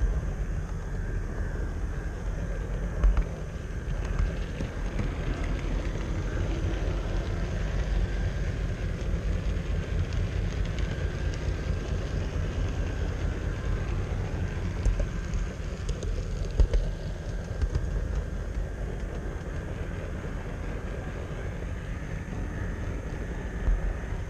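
Model train running along its track, heard from a camera riding on it: a steady low rolling rumble and rattle of wheels on rail, with a few louder clunks, about 3 seconds in and twice around 16 to 17 seconds in.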